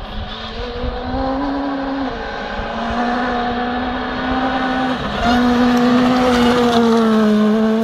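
Ford Fiesta rally car accelerating towards the listener and past. Its engine note climbs, drops back with an upshift about two seconds in and again about five seconds in, and grows louder as the car comes close near the end.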